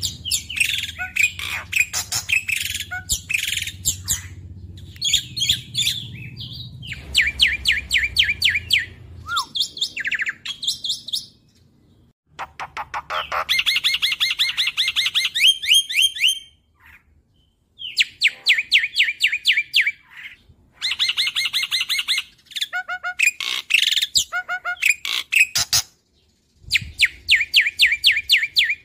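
Black-winged myna (jalak putih) singing in rapid-fire bursts: fast trains of sharp, high repeated notes lasting a few seconds each, broken by short pauses.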